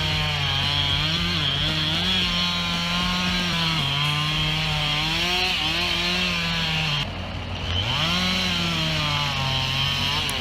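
Two-stroke chainsaw cutting wood, its engine note rising and sagging as the chain loads up in the cut; about seven seconds in it eases off briefly, then picks up again.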